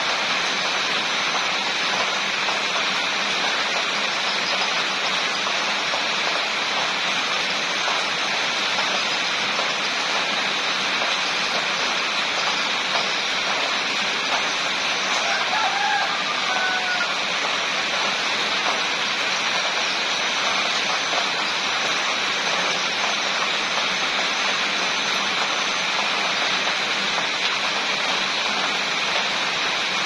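Steady rain falling. About halfway through, a faint rooster crow rises briefly above the rain.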